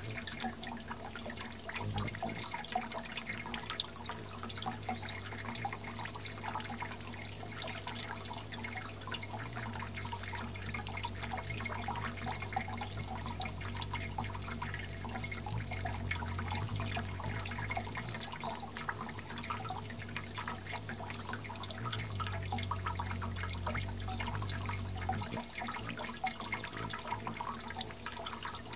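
Water from a Hummingbird Playground Fountain's small jets splashing and dripping steadily. A low hum runs underneath and eases off near the end.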